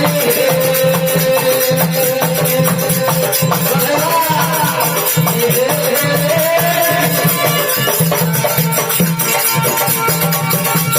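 Rajasthani folk devotional bhajan music: a held melody line that slides up and down in pitch over a steady, regular drum beat, with jingling rattling percussion throughout.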